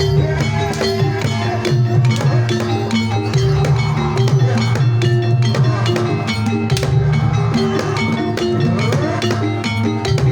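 Banyumasan gamelan playing a tayub gending: hand drums beat busily over steady ringing tones from the bronze keyed instruments and gongs.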